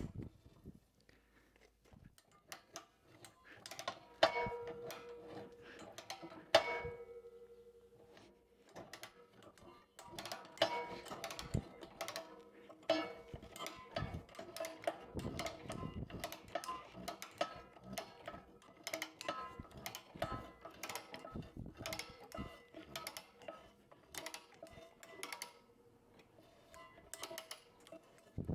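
Background music over irregular metallic clicks and clinks of a chain and chain binder being rigged and tightened to pull a bent grapple plate straight.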